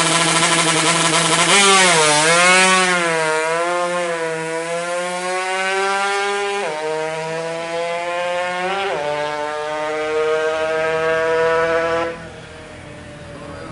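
Yamaha RX-King's two-stroke single-cylinder engine running loud. Its revs swing up and down twice, then it accelerates with the pitch climbing steadily and dropping sharply twice at gear changes. The engine sound cuts off suddenly near the end.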